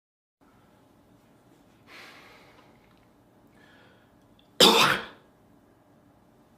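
A man coughing: a softer, breathy hack about two seconds in, then one loud, short cough near the end.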